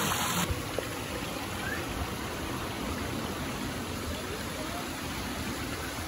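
Shallow stream of water running and splashing over rocks and a small drop, a steady sound.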